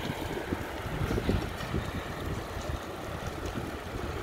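Wind rushing over the microphone of a camera on a moving bicycle: a steady low rumble with irregular gusty buffeting.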